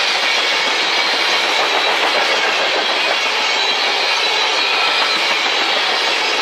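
Crude oil tank cars rolling past at speed: a steady, unbroken noise of steel wheels running on the rails.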